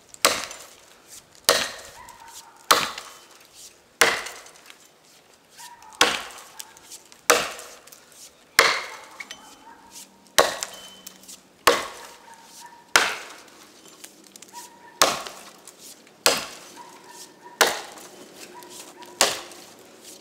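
Rinaldi "American" boy's axe chopping into a fallen beech log: about fifteen sharp wooden chops, one every second and a quarter or so, with a few slightly longer pauses between strokes.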